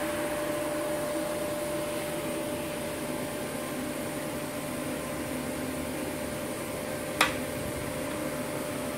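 Steady hum of a switched-on inverter TIG welder's cooling fan, with a thin steady whine over it and one short sharp click about seven seconds in.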